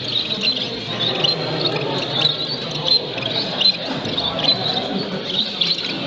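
Many caged zebra and Bengalese finches chirping in short, quick calls throughout, over the background chatter of many people talking.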